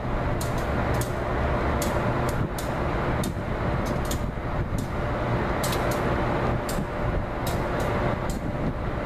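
Amtrak diesel locomotive moving slowly through the rail yard, its engine a steady low rumble, with scattered sharp clicks about once or twice a second.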